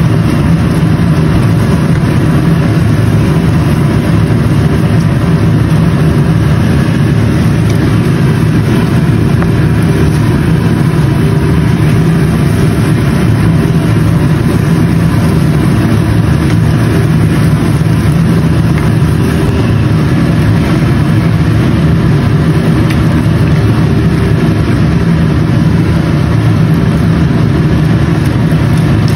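Steady, unchanging low machine hum at a high level, like a motor running without pause.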